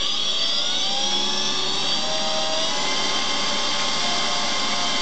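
Silverson high-shear mixer-emulsifier's electric motor being sped up: its whine rises in pitch over the first second or two, then holds steady at high speed while the mixing head churns the water.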